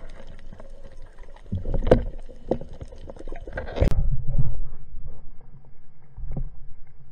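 Underwater sounds at a speargun: scattered clicks and knocks, then a sharp crack a little before four seconds in as the speargun fires its shaft into a red morwong, followed by a low rumble.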